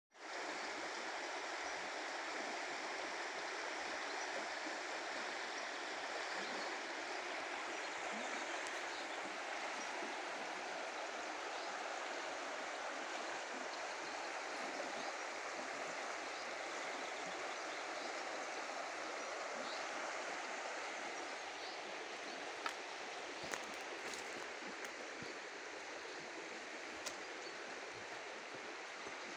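Shallow river rushing over stones and riffles: a steady, even rush of water that falls slightly quieter after about twenty seconds. A few short sharp clicks come near the end.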